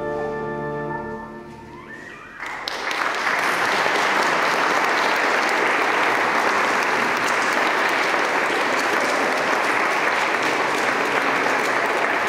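A pipe organ's closing chord fades out, and about two and a half seconds in the congregation breaks into steady applause that continues to the end.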